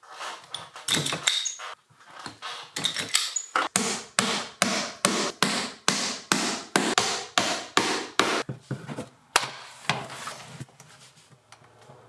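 A hammer driving nails into a wooden ceiling joist: a steady run of sharp blows, about three a second, lasting several seconds and stopping a little before the end. A few loose metal clicks and clanks come before the hammering starts.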